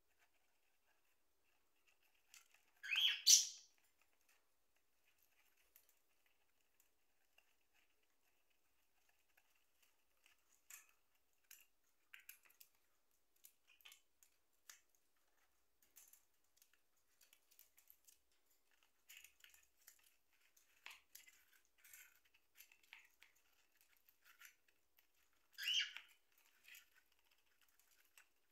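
A peach-faced lovebird chewing and shredding a cardboard tube with its beak: faint, scattered crunching and tearing clicks. Two short, louder bird calls come about three seconds in and near the end.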